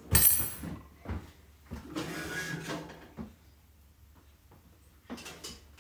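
Kitchen handling sounds: a metal clatter of utensils at the start, a knock about a second in, then a short scrape like a drawer or pot sliding, before it goes quiet.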